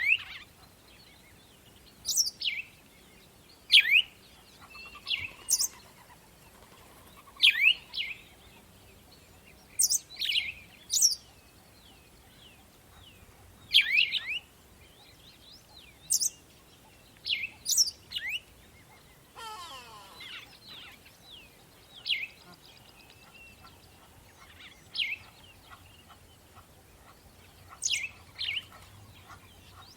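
Songbirds singing: short, sharp chirps that sweep down steeply in pitch, repeated every second or two. A fainter rattling trill comes in a little past the middle.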